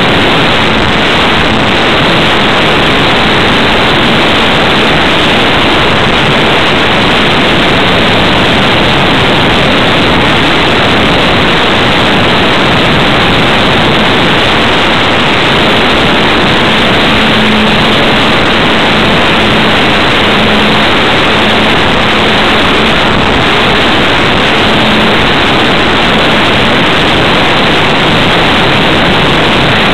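Steady, loud rush of wind and propeller noise on a small onboard microphone aboard a ParkZone T-28 Trojan electric RC plane in flight, with a faint hum from its motor coming through more clearly in the second half.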